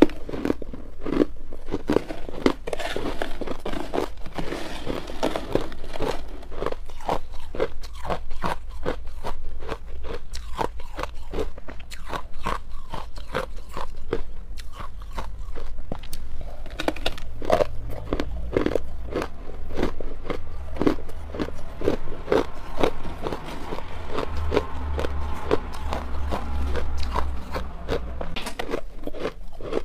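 Crushed ice chewed close to the microphone: a steady stream of hard, sharp crunches, a few each second.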